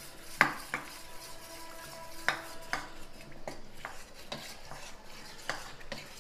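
A metal spoon stirring cornflour-and-water batter in a stainless steel bowl, clinking against the sides at irregular intervals, the louder knocks leaving a faint ring from the bowl.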